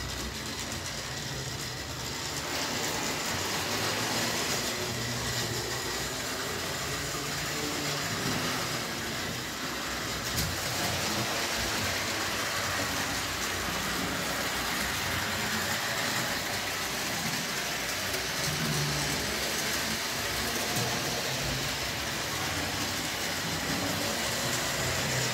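HO-scale model locomotive running around the layout: a steady whir of its small electric motor and wheels on the track, growing slightly louder toward the end.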